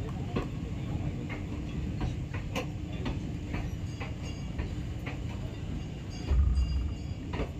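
Indian Railways passenger coaches of an arriving express rolling past at low speed: a steady low rumble, with wheels clacking over the rail joints every half second to a second. A louder low thud comes about six seconds in.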